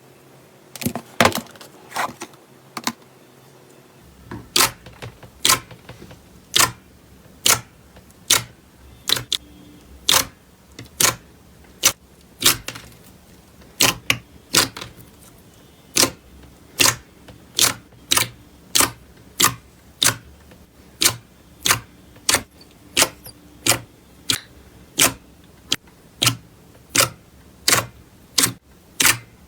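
Slime being pressed and worked by hand, giving a string of sharp pops a little over once a second as air pockets in the slime burst.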